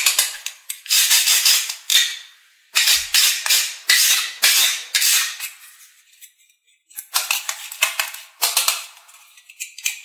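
Rapid sharp clicking and clattering in three spells, each a quick run of clicks that fades out.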